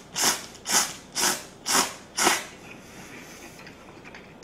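A person slurping spicy Shin Ramyun noodles in quick pulls, about two a second, five in a row, stopping a little over halfway through.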